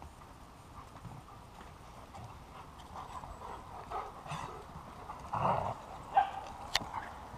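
Several dogs running and playing together over dirt and leaf litter, paws scuffling and padding. A louder scuffle comes about five and a half seconds in, followed by two sharp knocks.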